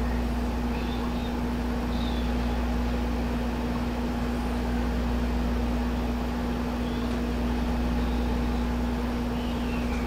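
Steady machine hum: one constant low-pitched tone over a low rumble, unchanging throughout, with a few faint short chirps coming and going above it.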